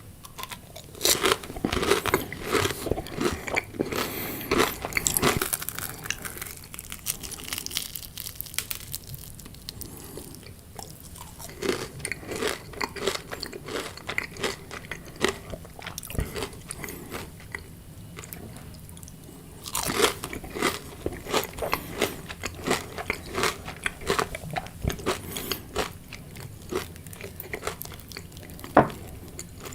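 Close-up chewing of crunchy fried food: bites and crackling crunches in runs, with quieter chewing between them. The crunching is heaviest in the first few seconds and again from about twenty seconds in.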